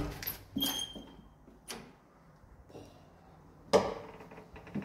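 A door being opened: several knocks and latch clicks with a short squeak about half a second in, and a louder bang near the end.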